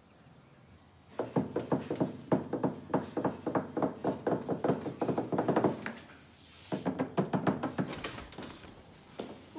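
Quick, steady knocking on a wooden apartment door: a long run of knocks, a short pause, then a second, shorter run.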